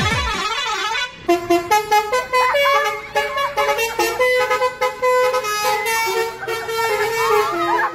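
Telolet multi-tone bus air horn playing a melody. It opens with a warbling trill, then from about a second in gives a fast run of short repeated notes that step between several pitches.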